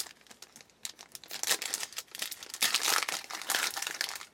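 Trading cards and their pack wrapper being handled: a run of crinkly, crackly rustles, busiest in the second half.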